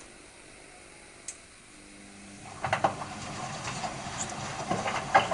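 Hotpoint Aquarius WMF520P washing machine with a broken drum spider: a faint hum, then about two and a half seconds in the drum starts turning with a rough rumble and irregular sharp knocks, the loudest near the end. The noise is the sign of the failed spider, which the owner reckons is more than just worn bearings.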